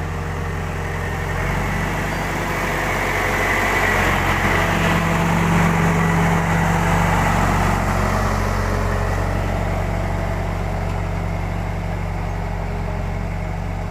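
Case 752 road roller's diesel engine running steadily; its note steps up about a second and a half in and it grows louder through the middle before easing back.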